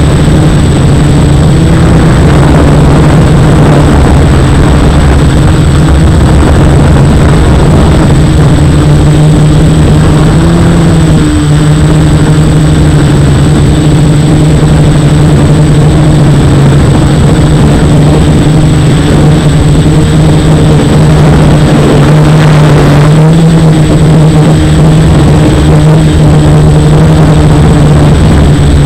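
F450 quadcopter's brushless motors and propellers buzzing steadily in flight, the pitch wavering slightly as the throttle changes. A thin, steady high whine runs underneath.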